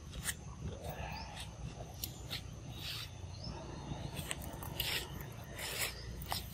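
A macaque biting and chewing soft, juicy orange fruit: wet smacking and chewing clicks at an irregular pace, over a steady low rumble.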